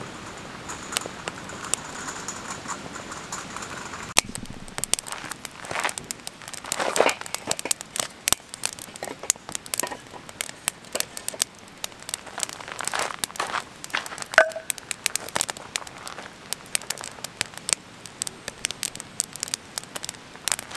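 Wood fire crackling in a steel fire bowl as split softwood sticks catch over the kindling: a soft hiss at first, then from about four seconds in a busy run of irregular snaps and pops.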